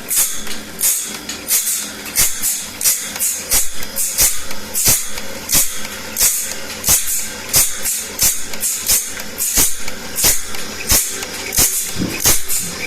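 Hand file rasping across the teeth of a saw blade in steady strokes, about one and a half a second, each stroke a sharp hissy rasp with a click.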